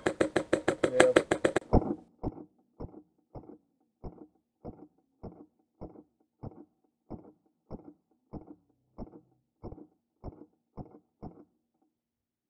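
Airsoft rifle firing a rapid full-auto burst for about two seconds. The burst is then played back slowed down as a string of low, dull, evenly spaced thuds, a little under two a second, that stop shortly before the end.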